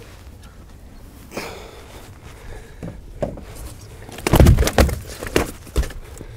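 Knocks and thumps of a landed zander being handled and laid down in a boat: a few light clicks, then a burst of heavy thumps about four seconds in and a couple more soon after, over a low steady rumble.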